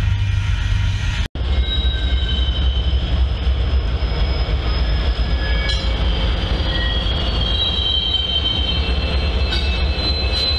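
Double-stack freight train rolling past with a low rumble. After a short break, BNSF diesel locomotives rumble along curved track while their wheels give off several high, steady squealing tones that drift slightly in pitch.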